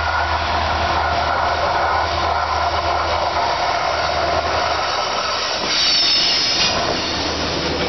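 Diesel freight locomotive 6003 approaching around a curve with its engine running steadily under power. About six seconds in it passes close by, at its loudest, with a brief high-pitched whine.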